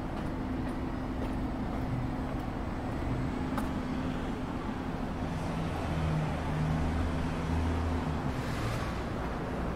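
Road traffic in a city street: a steady traffic hum, with a vehicle engine growing louder in the second half and then fading.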